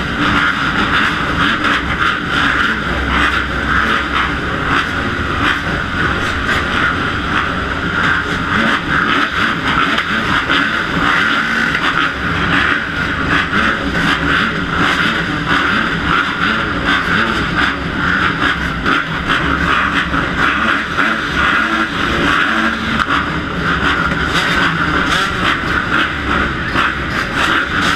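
A row of motocross dirt bikes running steadily at the starting gate, among them the rider's own Kawasaki KX250F four-stroke, heard through a helmet-mounted camera.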